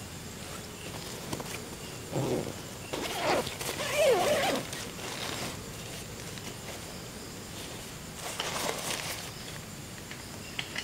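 Camping gear of fabric or plastic being unpacked and unrolled on dry leaf litter: several short bursts of rustling and crinkling about two, three and four seconds in, the loudest near four seconds, and again near the end. Faint steady night insects run underneath.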